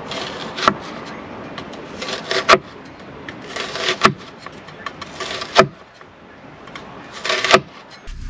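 Knife sawing through food on a wooden cutting board: five rasping strokes about every one and a half seconds, each ending in a sharp knock as the blade meets the board.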